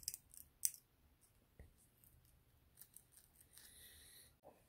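Needle-nose pliers working the end of a motorcycle throttle cable: a few small metal clicks in the first second, then a short scraping rub about three-quarters of the way through, with faint room tone between.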